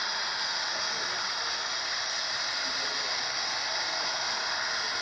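Steady, even hiss with no rhythm or distinct events.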